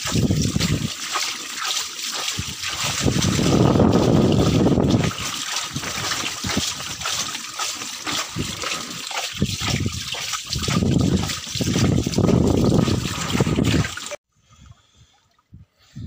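Water pouring and splashing as a bag of whiteleg (vannamei) shrimp fry is emptied into a lined tank. The sound cuts off abruptly near the end.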